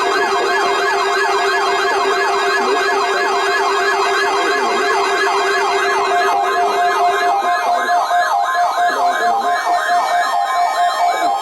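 Weather radio receivers sounding their electronic alert alarm: a fast repeating siren-like sweep, about three to four a second, over several steady beeping tones. It is the radios being set off by a NOAA Weather Radio test.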